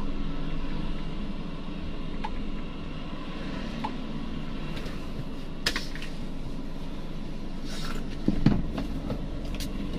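Steady low hum inside a stopped car's cabin from the idling engine and the air-conditioning fan. A sharp click comes a little before six seconds in, and a louder knock about two and a half seconds later.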